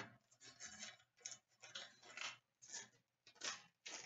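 Hockey trading cards being handled on a glass counter: a string of short, soft rustles and slides as cards are put down and the next ones are picked up and fanned through.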